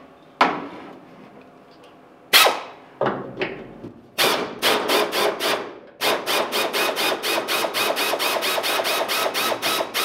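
Pneumatic wrench on an air hose working the hood hinge bolts of a 1971 Chevy pickup to free the hood: a few single sharp knocks and short stuttering bursts, then from about six seconds in a steady rapid clacking, about four or five strikes a second.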